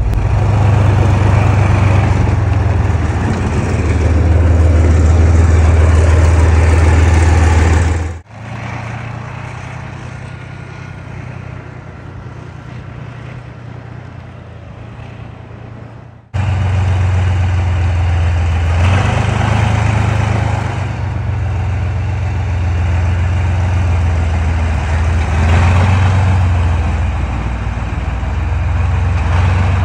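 Vehicle engine drone and road noise heard from inside a moving vehicle. About 8 seconds in the sound cuts to a quieter stretch, and about 16 seconds in it jumps back to full loudness.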